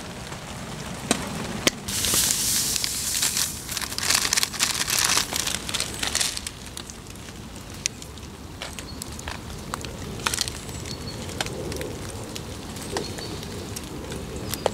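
Rain falling steadily, with scattered sharp crackles like a small campfire. A louder rushing hiss swells in from about two seconds in and fades out after about six seconds.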